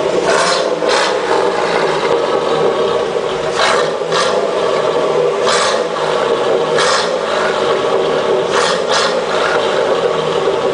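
Chevrolet Blazer's 4.3-litre V6 held steadily at raised revs, a constant exhaust drone with short rushes of noise laid over it every second or two.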